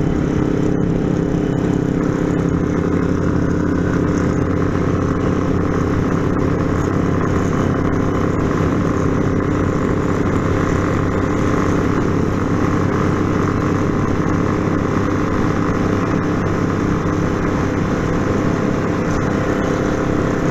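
Yamaha Fazer 250's single-cylinder engine running at a steady cruising speed on the road, with wind noise over it; the engine note holds constant with no change in speed.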